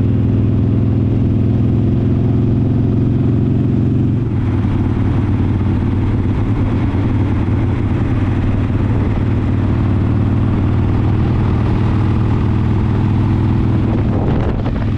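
Harley-Davidson V-twin motorcycle engine running while riding along, with wind and road noise. The steady engine drone turns rougher and less even about four seconds in.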